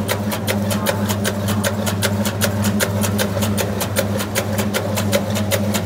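Electric meatball-forming machine running: a steady motor hum with an even, rapid clicking of about five a second.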